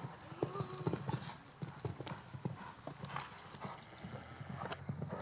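Hoofbeats of a horse cantering across a sand arena, a quick run of knocks with no break.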